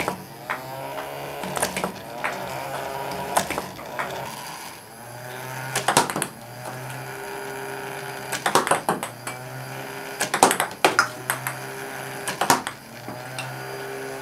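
A small DC motor spinning the two rubber wheels of a homemade ping-pong ball launcher, running with a steady hum that wavers in pitch as balls are fed through. Sharp clicks and taps come each time a ball is shot out and strikes the cardboard target or the table, several in quick succession near the middle and towards the end.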